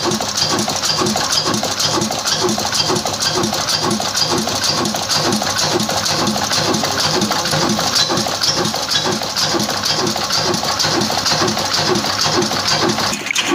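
Old Shaheen horizontal oil engine with a large flywheel running steadily, its slow even beat and a light regular mechanical clatter from the engine and its belt drive.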